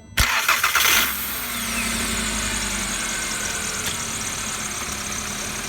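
VW Golf engine starting: about a second of cranking, then it catches and settles into a steady idle.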